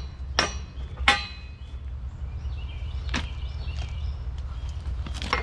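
Hammer tapping a steel pin into an excavator thumb's pivot, four ringing metal strikes at uneven intervals, with a steady low hum underneath.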